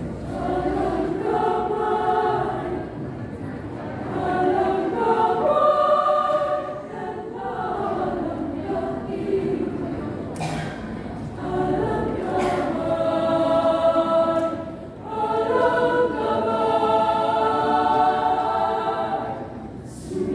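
A mixed choir singing in harmony, held chords in phrases that swell and fall back, with brief breaks between phrases.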